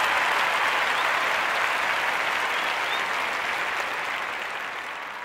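Audience applauding, gradually fading out.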